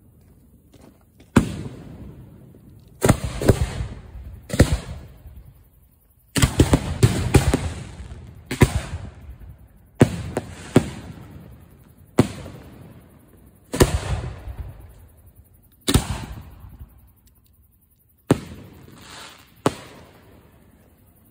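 Fireworks shells fired from mortar racks close by, one sharp bang after another every second or two, each with a fading tail. There is a quick run of several shots about six to seven seconds in.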